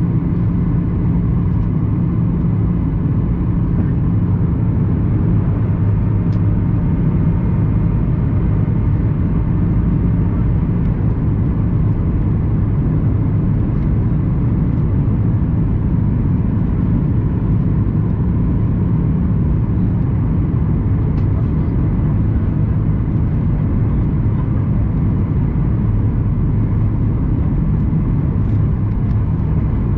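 Cabin noise inside a Boeing 737-800 on final approach: a steady rumble of its CFM56 engines and rushing air, with a low hum, one tone of which drops out about a third of the way through.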